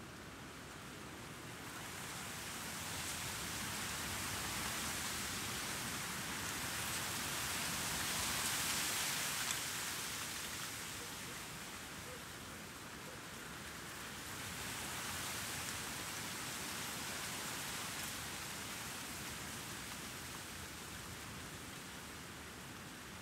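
Outdoor breeze blowing in gusts, swelling twice, the stronger gust about eight seconds in, with very light city noise underneath.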